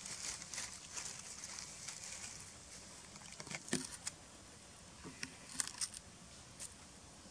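Long-tailed macaques biting and chewing cucumbers: scattered crisp crunches and snaps, bunched about three and a half seconds in and again past five seconds.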